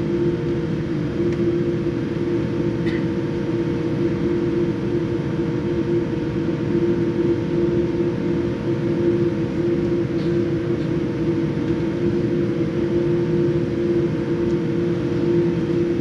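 Steady cabin noise inside a Boeing 787 taxiing on the ground: an even rumble of the engines and airflow with a steady droning hum over it, neither rising nor falling.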